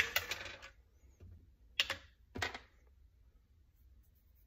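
Handling of a plastic supplement bottle: a short rattle of pills at the start, then two sharp clicks from its cap near the middle, about half a second apart.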